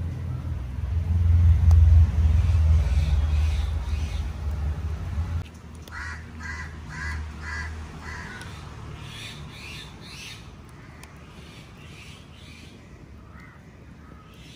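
A low rumble, loudest about two seconds in, stops abruptly after about five seconds. Then a crow caws several times in quick succession, and more caws follow a few seconds later.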